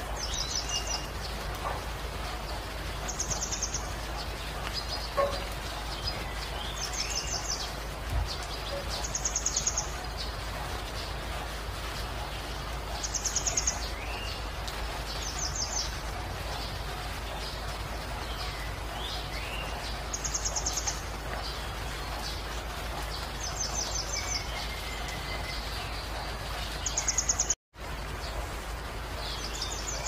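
Steady hiss of falling rain with birds calling over it: a short high trill repeated every two to four seconds, and lower slurred whistles in between. The sound cuts out for an instant near the end.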